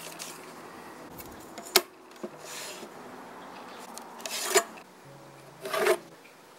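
A pencil scratching short lines across a pine board against a steel rule and square: three brief scratchy strokes, the last two the loudest. About two seconds in there is one sharp click.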